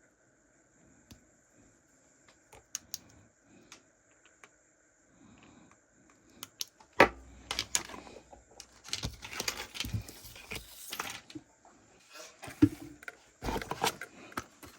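Fishing lures and their plastic packaging being handled: scattered light clicks and crinkly rustling, with a sharp knock about halfway through and busier rustling after it.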